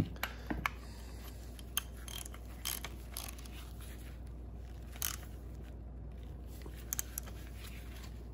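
Faint, scattered clicks and light scrapes of hand tools and a threaded pipe fitting being worked into a new mechanical fuel pump body on a workbench.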